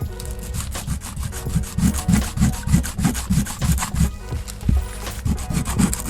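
Quick back-and-forth hand-rubbing strokes of an abrasive on a metal model-gun part, about three to four strokes a second, as the plating is worked off. Faint background music underneath.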